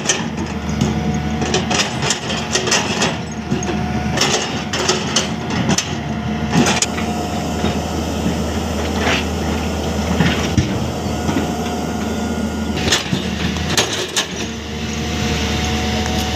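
Hyundai 215LC crawler excavator's diesel engine running steadily under load while its bucket digs into a heap of broken rock, with rock knocking and clattering against the steel bucket. The knocks come thickest in the first few seconds and again briefly near the end.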